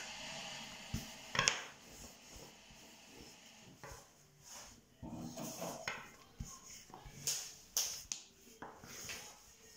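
Thin wooden rolling pin rolling and knocking against a table as a sheet of unleavened dough is rolled out, with the dough lifted and flapped back down between passes; an irregular run of soft knocks and rubbing.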